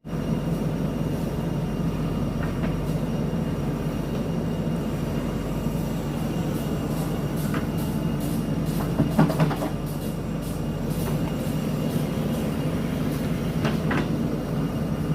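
JCB backhoe loader's diesel engine running steadily under work, with a few brief metallic clanks from the digging arm and bucket, the loudest about nine seconds in.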